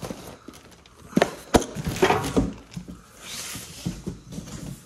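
Unboxing handling noise: cardboard boxes and plastic wrapping being pulled and set down on a concrete floor. Two sharp knocks come a little over a second in, followed by rustling and crinkling of the packaging.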